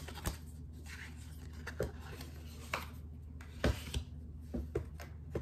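Tarot cards being handled on a wooden desk: a scattering of light, irregular clicks and taps as cards are set down and slid, with soft rubbing between them.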